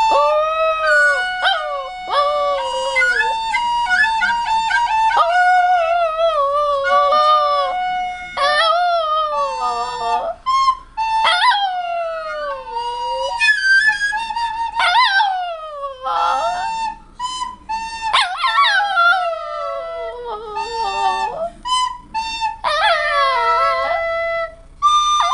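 A dog howling along to a flute. The flute holds steady notes while the dog's howls rise and slide down in pitch, in bouts with short breaks.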